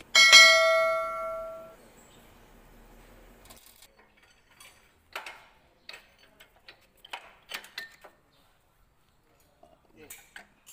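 A click and then a bright bell-like ding ringing out for about a second and a half: the notification-bell chime of a subscribe-button animation. Later come faint, scattered metal clicks and taps from tools on transmission parts.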